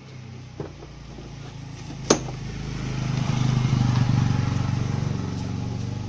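A motorcycle engine running nearby, its low hum swelling to a peak about four seconds in and then easing off. There is a single sharp click about two seconds in, as the scooter's plastic front fairing is pried off.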